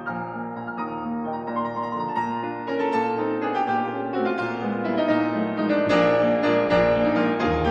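Piano music playing, a flowing run of notes.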